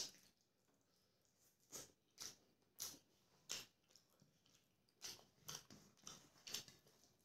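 Quiet, close-miked chewing of a mouthful of rice and chicken curry: short wet mouth smacks about every half second, pausing around the fourth second, then another run of them.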